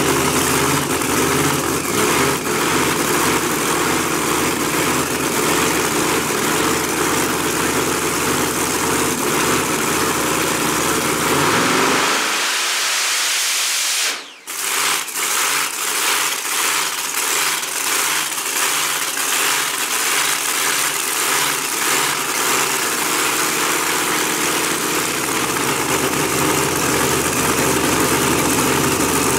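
Supercharged Pro Mod drag-racing V8 idling steadily during its pit warm-up. About halfway through, the low rumble thins out and the sound dips sharply for a moment, then the idle carries on.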